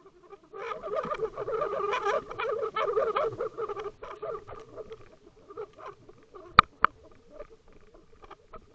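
Underwater rattling, croaking pulses picked up by a drop camera. They are strong for about three seconds, then thin to scattered clicks, with two sharp knocks close together past the middle.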